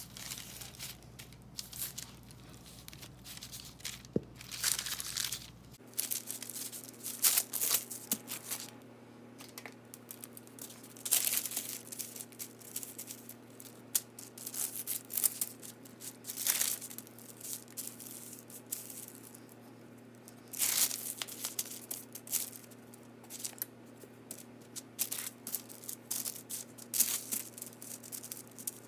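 Parchment paper crinkling and rustling in irregular bursts as hands gather and press soft pie-crust dough on it.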